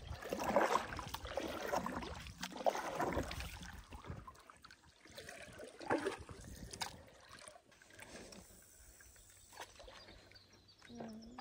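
Water swishing and trickling around a canoe, several swishes over the first few seconds, then quieter. A couple of sharp knocks about six seconds in.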